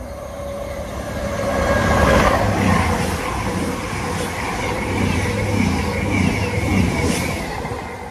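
A train passing through, its noise building over the first two seconds, with a series of repeated wheel clacks, then fading away near the end.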